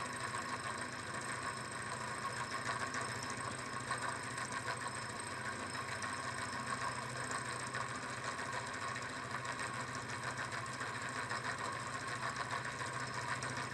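Small candle-heated lamina flow (thermoacoustic Stirling-type) engine with a graphite piston running steadily at about 830–845 rpm, a fast, even mechanical rattle, its speed creeping up toward its top speed of 850 rpm.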